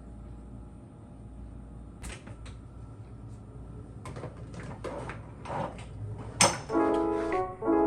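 A run of clicks and knocks from household items being handled, growing busier and ending in one sharp knock. Background music comes in near the end.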